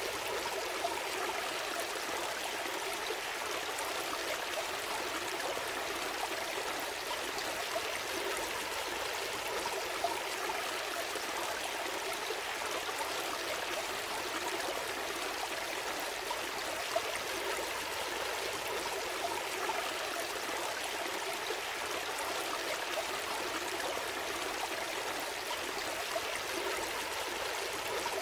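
Gentle stream flowing steadily: a continuous rush and trickle of water, with a few brief louder splashes.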